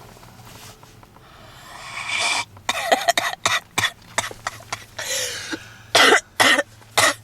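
A woman's smoker's coughing fit. A wheezy indrawn breath is followed by a quick run of short coughs, then another wheezy breath and three loud separate coughs near the end.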